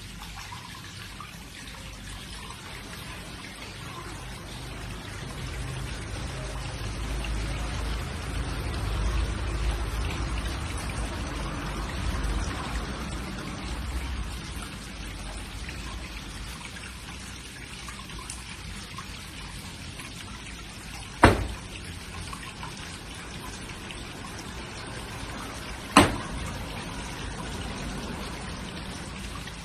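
Steady trickle and patter of water, with a low rumble swelling for several seconds in the first half. Two sharp thumps stand out about five seconds apart in the second half.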